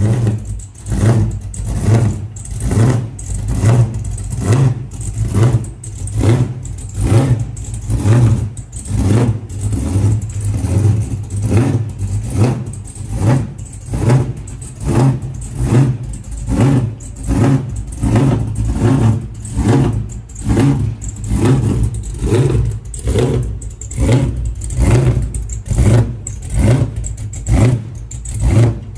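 A classic Chevrolet pickup's engine running at idle with a steady, rhythmic lope: a deep, loud pulse rising and falling a little more than once a second, over and over.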